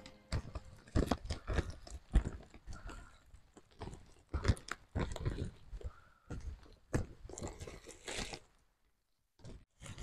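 Footsteps crunching on a wet dirt forest trail: an irregular series of steps, a few a second, that stop briefly near the end.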